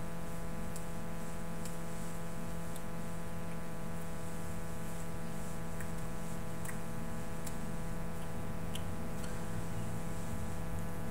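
A steady electrical hum with a constant pitch, under a faint hiss, with scattered faint clicks a few times over the stretch.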